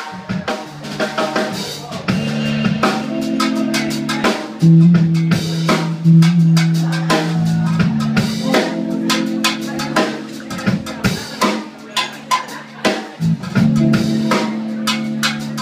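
Live band playing an instrumental intro: a drum kit keeps a groove of snare, rimshot and kick strikes over bass holding long low notes.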